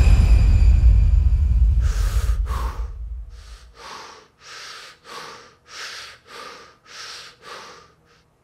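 A deep boom with a ringing tone fades away over the first three seconds. It gives way to a man's heavy, fast breathing into his hands, about two breaths a second, which stops shortly before the end.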